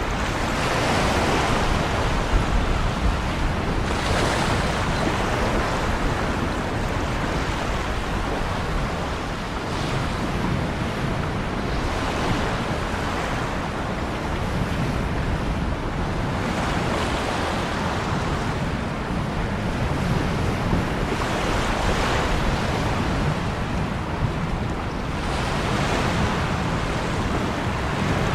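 Ocean waves breaking and washing ashore: a continuous rush of surf, with a fresh swell every two to five seconds.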